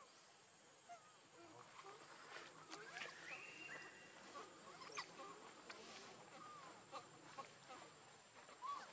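Faint, scattered short squeaks and chirps of small animals, with a few light clicks, over a thin steady high tone.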